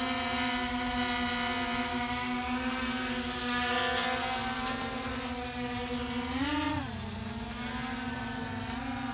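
MJX Bugs 5W quadcopter's four brushless motors and propellers whining steadily as it hovers. About six and a half seconds in, the pitch rises briefly and then falls back.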